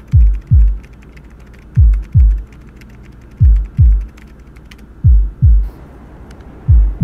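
Heartbeat sound effect: five double thuds about a second and a half apart, each thud low and falling in pitch. Faint laptop keyboard typing clicks lie underneath and stop about five seconds in.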